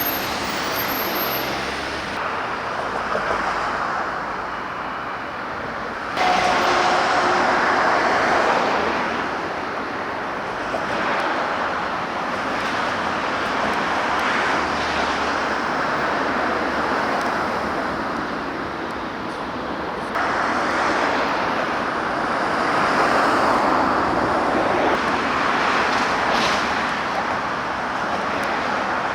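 Road traffic noise of vehicles passing on a city street: a steady rush of engines and tyres that jumps abruptly in loudness several times.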